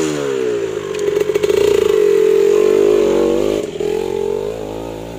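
Kawasaki dirt bike engine revving hard while the bike sits in a muddy rut. The pitch dips, climbs about a second in to a loud held high rev, then drops back after about three and a half seconds to a lower, quieter run near the end.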